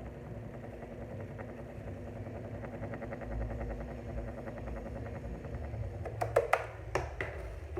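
Mondial electric fan running: a steady motor hum with a fast, even rattle, then a few sharp clicks near the end. It is the annoying noise of a worn, scratched motor shaft bushing; the repairman first suspected the shaft.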